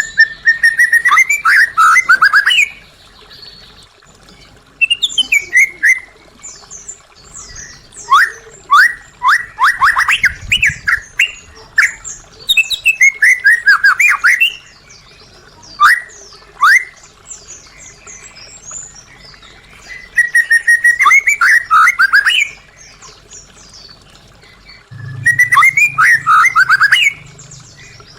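White-rumped shama singing: about seven loud bursts of quick, sharp, sweeping notes, separated by short pauses.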